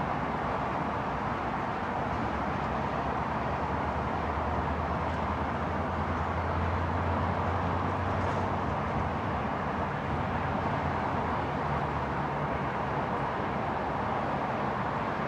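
Steady outdoor background noise with a low rumble that swells for several seconds midway and then eases.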